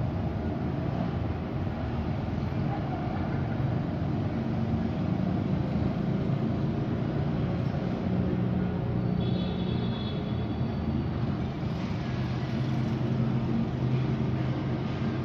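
Steady low rumble of city traffic, with engines droning through it and a brief high-pitched tone about nine seconds in.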